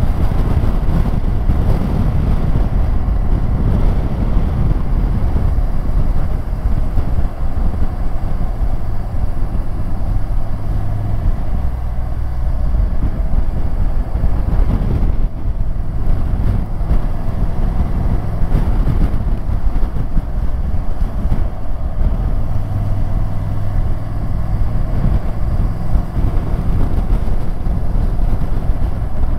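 Motorcycle riding at road speed, its engine hum nearly buried under a loud, steady rumble of wind buffeting the microphone.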